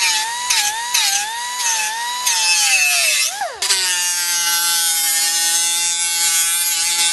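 Pneumatic die grinder whining at high speed as it sands and cuts the plastic grille shell. The pitch wavers under load for the first few seconds, dips and recovers about three seconds in, then holds steady.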